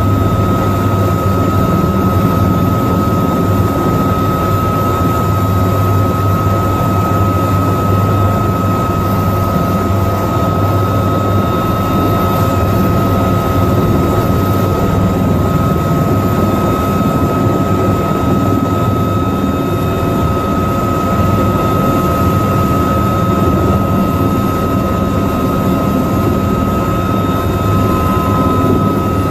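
Bell AH-1Z Viper's twin General Electric T700 turboshaft engines and main rotor running on the ground, heard from inside the cockpit: a loud, steady rumble with a constant high whine.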